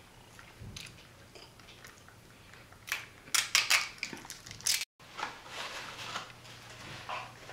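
Close-miked eating of fast food: crunchy bites and chewing, with a run of loud crunches about three seconds in.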